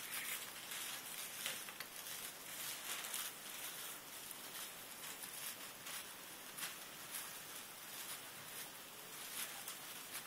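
Tissue paper rustling and crinkling in many small irregular crackles as the folded layers of a paper flower are pulled apart and fluffed up.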